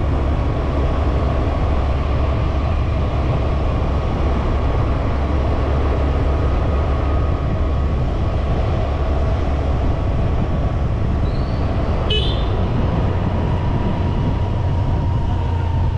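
Steady road noise of a moving battery e-rickshaw (toto), a continuous low rumble with a faint steady whine that sinks slightly in pitch near the end. A brief horn toot sounds about twelve seconds in.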